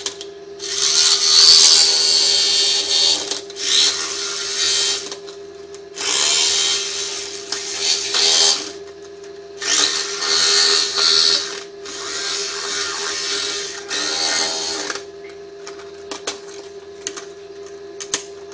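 Electric jigsaw cutting a thin metal sheet in five runs of a few seconds each, with short pauses between them. A steady hum runs underneath, and the last few seconds hold no cutting.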